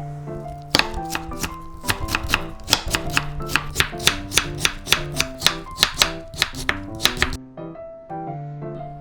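Knife chopping radish into strips on a cutting board, about three sharp strokes a second, stopping near the end, over light background music.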